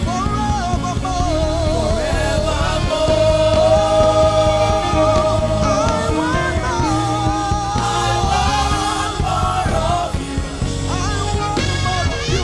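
Live gospel praise and worship music: a singer holds long, wavering notes over a backing band.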